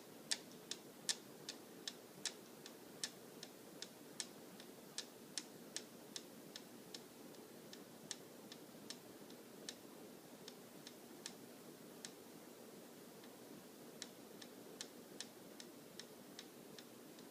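Ceiling fan blades striking a string of Christmas lights, giving sharp, irregular clicks about two or three a second, sparser about twelve seconds in, over the fan's steady low hum.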